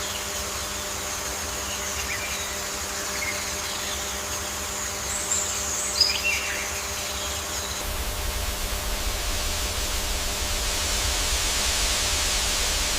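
Ambient nature soundscape: a steady hiss over a low hum, with a few short bird chirps about five to six seconds in. From about eight seconds in it grows slightly fuller and louder.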